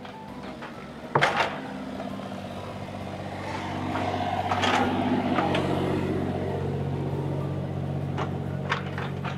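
A vehicle's motor humming steadily. It starts with a sharp knock about a second in and grows louder around the middle.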